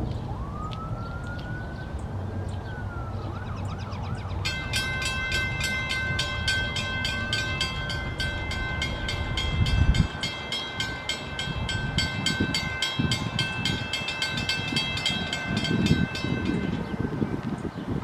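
Two Western Cullen Hayes Gen. 2 mechanical crossing bells ring rapidly as the crossing activates, starting about four seconds in and stopping shortly before the end once the gates are down. Before the bells start, a siren wails up and down.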